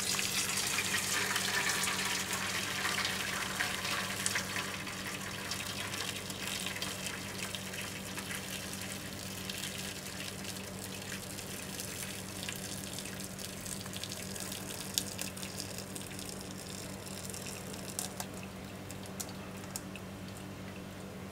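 Dashi broth poured from a pot through a cloth-lined strainer, splashing into the pot below. It is loudest in the first few seconds, then thins to a trickle and drips as the broth drains through the cloth.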